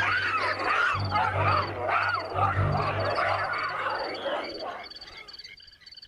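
A troop of baboons calling: many overlapping high squeals over low grunts. The calls fade out about five seconds in.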